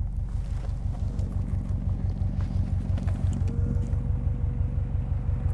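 Subaru Impreza WRX STI's flat-four boxer engine idling steadily with an even, pulsing low rumble. A thin steady whine joins in about three and a half seconds in.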